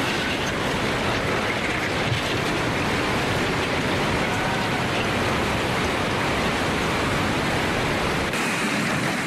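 Tsunami floodwater rushing and churning through town streets: a loud, steady rush of water noise. The tone changes abruptly about eight seconds in, becoming thinner and hissier.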